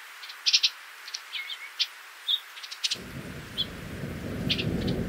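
Small birds chirping in short, quick calls. About three seconds in, a low rumble of thunder starts and swells beneath them.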